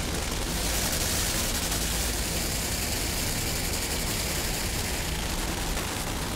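A steady low engine rumble under a broad rushing noise, holding an even level throughout.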